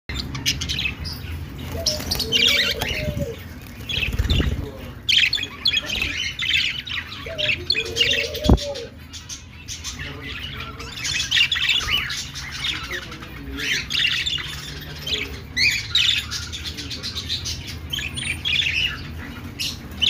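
A flock of caged budgerigars chattering and warbling in overlapping clusters of chirps, with a low thump about four seconds in and a sharp knock about eight seconds in.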